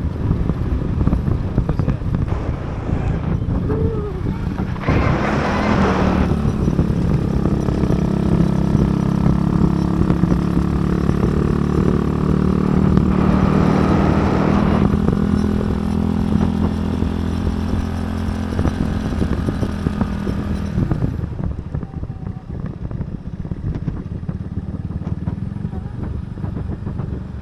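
Motorcycle engine running steadily while riding, under constant wind rumble on the microphone. The engine note drops away about twenty seconds in, leaving mostly wind noise.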